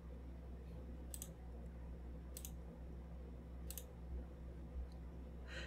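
Three faint computer mouse clicks about a second and a quarter apart, with a couple of fainter ticks near the end, over a low steady hum.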